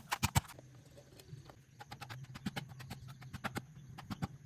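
A series of sharp knocks or clicks, coming quickly at first and then more sparsely, over a low steady hum.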